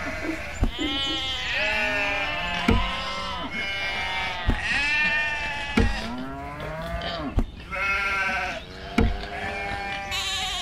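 Sheep bleating, many calls overlapping one another, with a short dull thump every second and a half or two.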